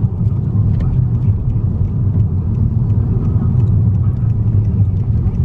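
Steady low rumble of a car driving, heard from inside the cabin: engine and road noise with no change in pace.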